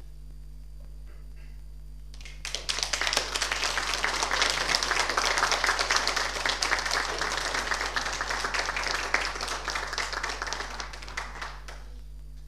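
Audience applauding. The clapping starts abruptly about two and a half seconds in, holds for about nine seconds, then thins out and stops shortly before the end.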